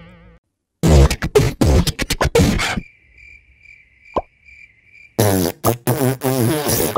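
Cartoon mouth sounds into a microphone, beatbox-like and wordless, in two bursts. Between them is an awkward pause filled with crickets chirping steadily and a single short plop.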